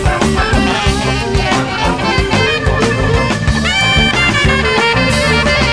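Background music: an instrumental stretch of a song, with held and sliding notes over a full band.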